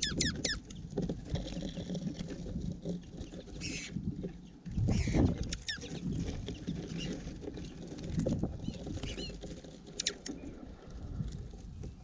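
Small finches at a platform feeder, mostly American goldfinches, give short high chirps and chips several times. Under them runs close, irregular low rustling and bumping of birds pecking and shuffling in the seed right by the microphone.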